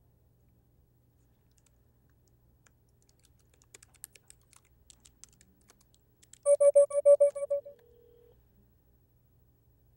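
Computer keyboard typing in light, scattered clicks. About six and a half seconds in, a loud warbling electronic telephone ring lasts about a second, signalling an incoming call, then a short quieter steady tone follows.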